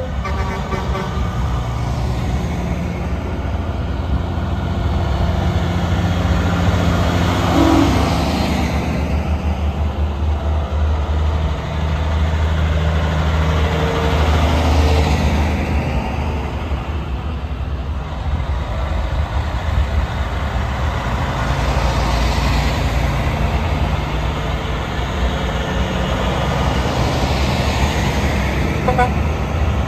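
Heavy diesel trucks (prime movers) driving past one after another, a deep engine drone that swells and fades as each one goes by.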